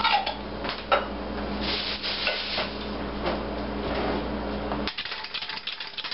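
Glass spice jars and kitchen utensils knocking and clinking as they are handled on a wooden cutting board, over a low steady hum. About five seconds in the hum cuts off, and faint quick ticking follows.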